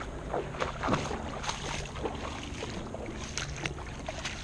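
Footsteps wading through mud and shallow water: a scatter of small splashes and sucking steps over a steady low rumble.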